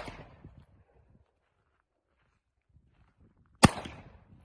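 Semi-automatic pistol shots: the echo of one shot fading away, then a second sharp shot about three and a half seconds in, its echo trailing off over about half a second.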